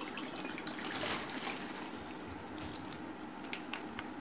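Wet squishing and light clicking of fingers working curry-soaked rice on a steel plate, busiest in the first second and a half, then a few scattered clicks.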